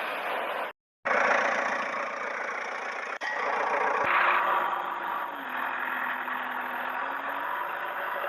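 Toy construction vehicles running, giving a steady engine-like mechanical noise, broken by a short silent gap about a second in and by abrupt cuts.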